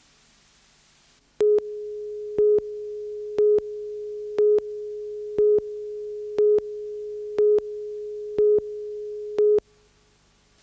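Countdown-clock line-up tone on a broadcast news tape: a steady mid-pitched tone with a louder beep once a second, nine beeps in all. It starts about a second and a half in and cuts off suddenly near the end.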